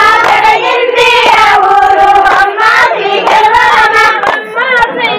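A group of women singing a Telugu Bathukamma folk song together in unison, with hand claps among the singing.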